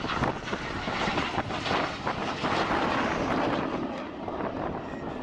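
Jet roar of an RAF BAE Hawk's Rolls-Royce Turbomeca Adour turbofan as the trainer flies its display, swelling a little and then easing, with wind buffeting the microphone.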